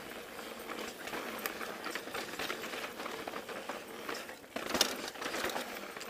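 Pivot Switchblade mountain bike rolling along a dirt singletrack trail: tyre noise over the ground with a steady stream of small irregular knocks and rattles, and one sharper clack about five seconds in.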